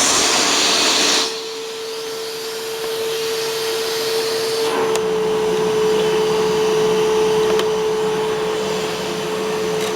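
Eureka Boss Smartvac 4870 upright vacuum cleaner running in hard floor mode: a steady motor whine over the hiss of air. The hiss is loudest for about the first second, then drops.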